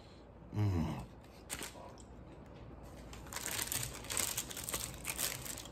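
A short low vocal sound from the man just under a second in, then, from about three seconds in, close-miked eating noise: rapid crinkling and crunching as a paper-wrapped burrito is handled and chewed.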